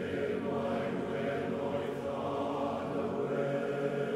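Choir singing slow, sustained chords as background music, the notes held steadily with little change.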